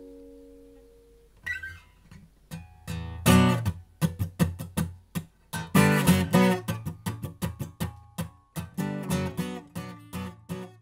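Steel-string acoustic guitar played solo: a chord rings out and fades over the first second and a half, then picked notes lead into rhythmic strummed chords, with the heaviest strums about three and six seconds in.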